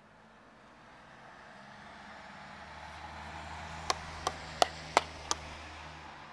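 A low steady hum swells up and holds. Near the middle come five sharp knocks, about three a second.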